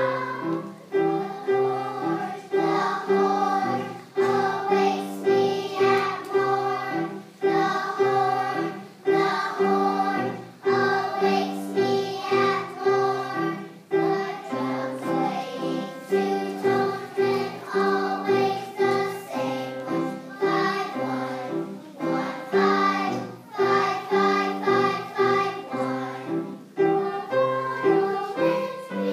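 Children's choir singing a song with piano accompaniment.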